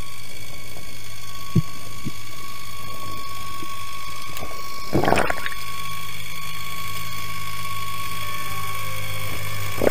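Motorboat engine and propeller heard underwater, a steady high whine over a low hum. There are two small clicks early on and a brief rush of noise about five seconds in.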